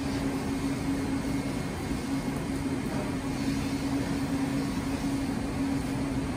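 Steady hum of commercial kitchen machinery: a constant low drone with a rushing noise over it, unchanging throughout.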